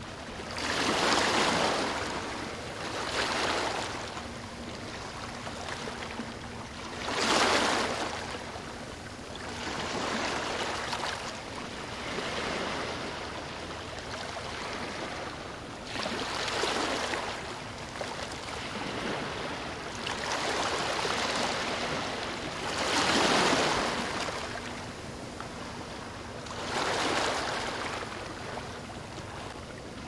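Wind-driven waves on a lake washing and splashing against a wooden jetty, swelling in surges every two to four seconds over a steady wash of water.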